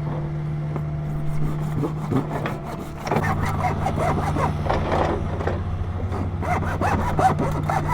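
A sewer cleanout pipe being cut through, with quick rasping saw strokes that start about three seconds in, over a steady idling excavator engine.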